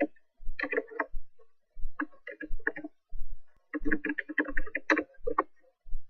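Computer keyboard typing: irregular runs of short key clicks with quiet pauses between them, as search terms are typed in.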